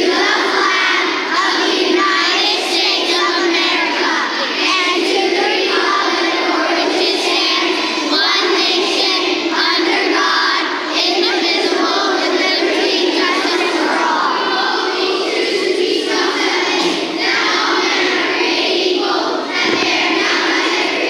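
A hall full of schoolchildren reciting the Pledge of Allegiance together in unison, phrase by phrase with short pauses between phrases.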